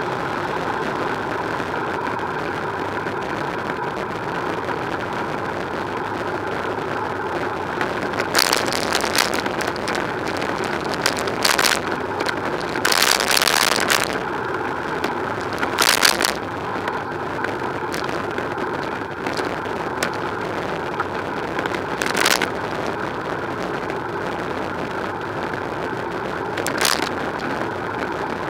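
Steady road and movement noise from a bicycle rolling along a city street, with a few brief louder bursts of noise through the ride.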